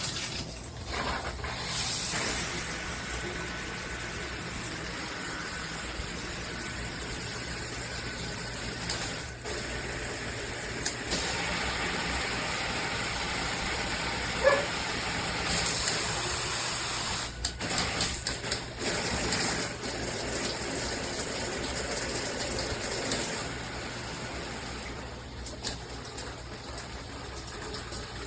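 Water spraying steadily from a handheld shower head, with a few short knocks along the way.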